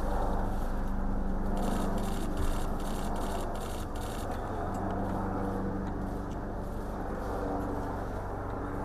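Low steady hum of idling car engines, with a rapid run of camera shutter clicks, about five a second, from about one and a half to four seconds in.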